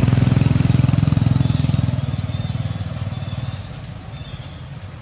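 A small engine running with a fast, even pulse, loud at first and fading away over about three and a half seconds.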